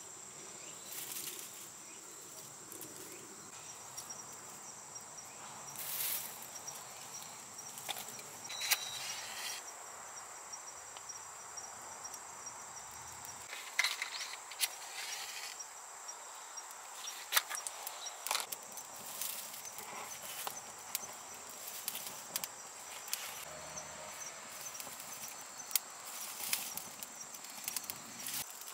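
Insects trilling steadily in a single high tone, with scattered crackles and snaps from dry twigs and vines being fed into a small wood fire in a steel fire stand and catching.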